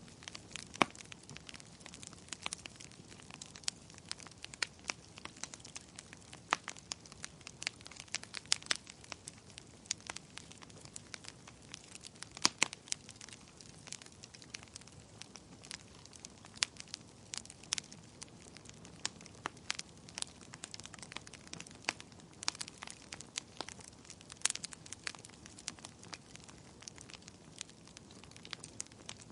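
Wood fire burning in a fireplace: a soft steady hiss with frequent irregular crackles and sharp pops.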